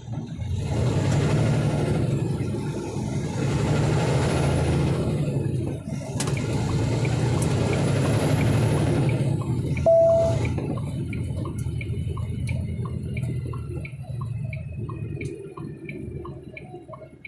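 A semi truck's diesel engine heard from inside the cab, pulling away under load, with two short dips in the engine sound in the first half. About ten seconds in there is a short beep, after which the engine runs lighter under a light, even clicking about twice a second.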